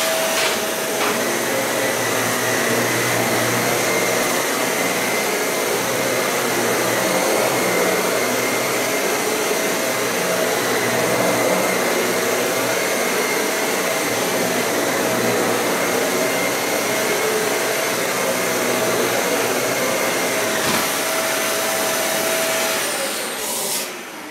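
Dyson Cinetic Big Ball upright vacuum cleaner running as it is pushed back and forth over carpet: a steady motor whine over rushing air. Near the end it is switched off and the whine winds down.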